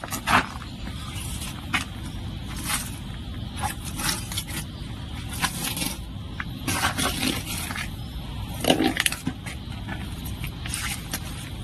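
Boning knife scraping and cutting along pork ribs and bone as a half pig carcass is deboned: irregular sharp scrapes and clicks of the blade on bone, over a steady low background hum.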